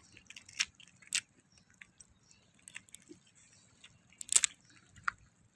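Green mussel shells clicking and scraping against one another and the rock as a hand pulls them from the cluster: scattered short sharp clacks, the loudest about four seconds in.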